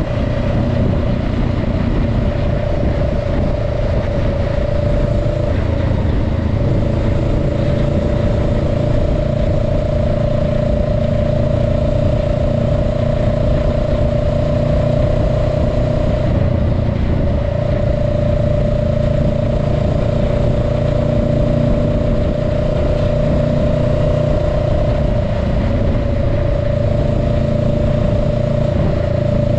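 Honda Rebel 500's parallel-twin engine running steadily at a road cruise of roughly 35 to 40 mph, with a steady engine tone over a low rumble and wind rushing past the microphone.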